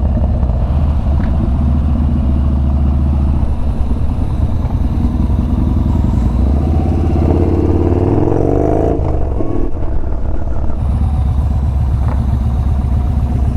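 Yamaha Bolt's air-cooled V-twin engine running under way. Its revs climb from about seven seconds in and drop suddenly near nine seconds, as on a gear change, before it settles into steady running again.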